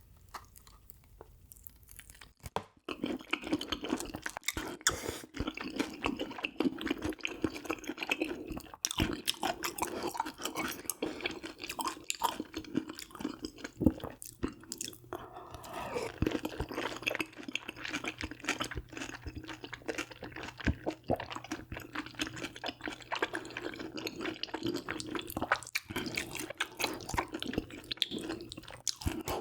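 A person chewing and crunching food close to the microphone, with many small wet clicks and crackles, starting about two and a half seconds in.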